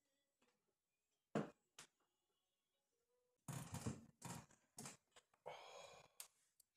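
A single sharp knock, a lighter click just after, then a few seconds of irregular rustling and scraping handling noise in a small room.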